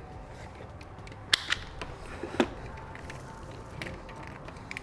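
Hand wire cutters snipping insulated electrical wire: a few sharp clicks, two close together about a second and a half in and another about a second later.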